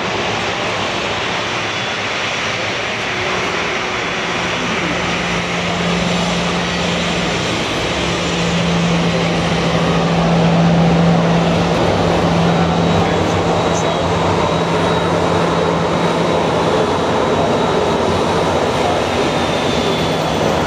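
Airliner engine noise: the Dash 8 Q400's turboprops as it slows on its landing roll, then a Boeing 737's jet engines at taxi power as it passes close by. A steady rushing with a low hum, growing a little louder about halfway through.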